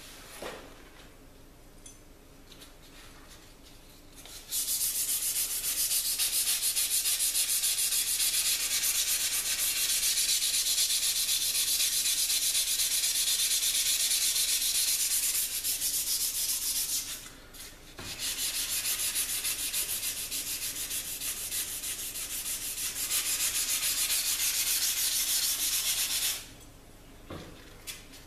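Green abrasive pad scrubbed hard back and forth on the steel of a knife blade: a steady rasping hiss that starts about four seconds in, breaks off briefly past the middle, and stops a couple of seconds before the end. The pad is cleaning up the surface of the etched Damascus and wootz steel.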